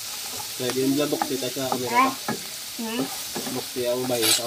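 Small crabs being stir-fried in a frying pan with a wooden spatula: shells clicking and scraping against the pan, with squeaky scrapes of the spatula, over a sizzle. A brief louder sizzle comes near the end.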